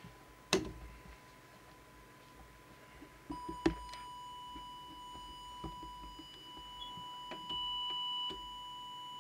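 Steady high-pitched test tone from a small audio oscillator, coming on about three seconds in, fed into the CB radio's microphone input to set its transmit deviation. A couple of sharp clicks of handling sound before and just after the tone starts.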